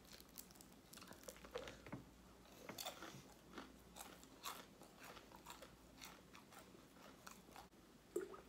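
A person chewing and biting fried chicken close to the microphone: faint, irregular crisp crunches and wet mouth sounds.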